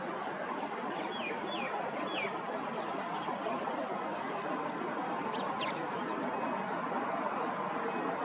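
Steady wash of small waves lapping at the shoreline, with three short, high bird calls sliding downward about a second in and a quick cluster of higher chirps about halfway through.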